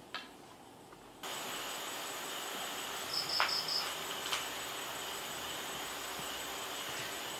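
Night ambience with a steady hiss that starts abruptly about a second in, and crickets chirping, with a quick run of four chirps about three seconds in. A light tap sounds at the very start and faint clicks come later.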